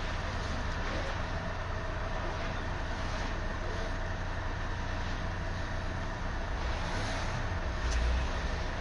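Steady engine and road noise of a moving car, picked up by a dashcam, with a brief low bump about eight seconds in.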